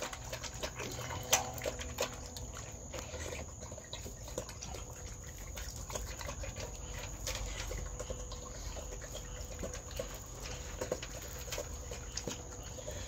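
A dog eating dry kibble from a stainless steel bowl: irregular crunching and chewing, with many short clicks of kibble against the metal bowl.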